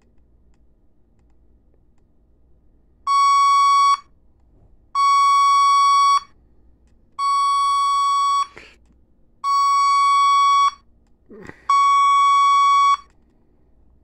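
Radio Shack 12-246 pocket weather radio sounding its alert siren: five steady, high-pitched beeps about a second long, each separated by about a second of quiet, with a faint knock or two between them.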